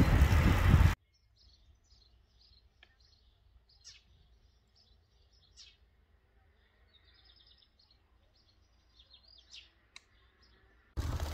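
Wind and riding noise on the microphone of a moving bicycle, cut off suddenly about a second in. Then faint birdsong: scattered short chirps, with a quick run of repeated notes later on.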